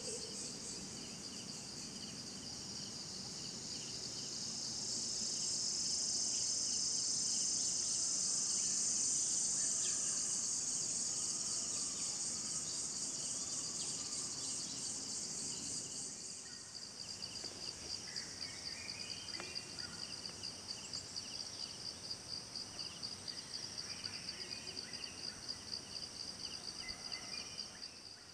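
Forest insects, crickets among them, keeping up a continuous high shrill chorus. It swells loudest in the middle, and after about sixteen seconds it thins to a fast, evenly pulsing trill.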